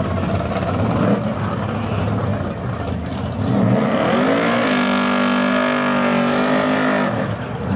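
A drag car's engine rumbles at low revs, then about three and a half seconds in revs sharply and holds high, steady revs for a couple of seconds while the rear tyres spin in a burnout, before dropping off abruptly near the end.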